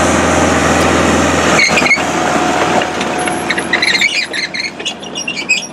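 Small excavator's diesel engine running steadily, with a short squeal about two seconds in. From about three seconds in the engine sound drops away, leaving scattered high squeaks and chirps.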